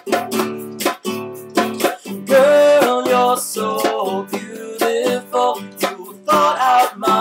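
Classical guitar strummed in a steady rhythm of chords, with a man's voice singing over it about two seconds in and again near the end.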